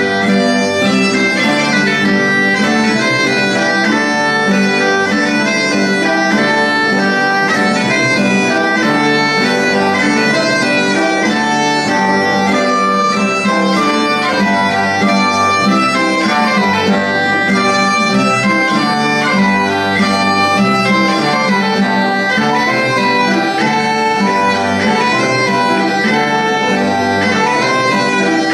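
Live folk music on a small bagpipe and wooden recorders. A steady drone is held throughout under a lively melody of quickly changing notes.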